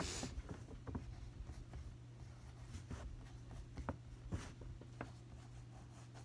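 Pen writing on paper: faint, scattered scratching strokes and light ticks, over a steady low hum.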